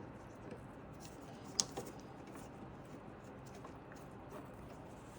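Faint handling of small computer parts, with light scattered clicks and one sharper click about one and a half seconds in.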